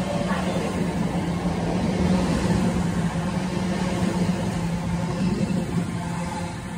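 Class 345 electric multiple unit pulling away, a steady low hum over rumbling wheel-on-rail noise, fading slightly near the end as the last carriage passes and the train moves off.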